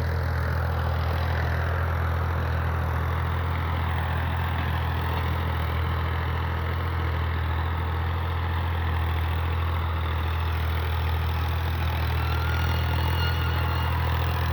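Engine running steadily at an even speed, a constant low hum with no change in pace.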